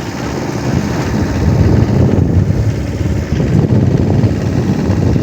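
Vehicle driving along a road, a steady low rumble of engine and road noise that grows louder about a second in.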